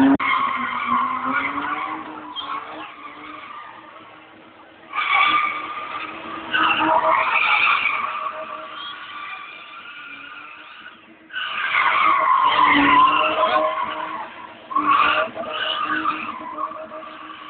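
A BMW's tyres squealing as it drifts, coming in several long loud bursts: about five seconds in, around seven seconds, longest from about eleven to fourteen seconds, and again near fifteen seconds. Under the squeal the engine holds a steady pitch.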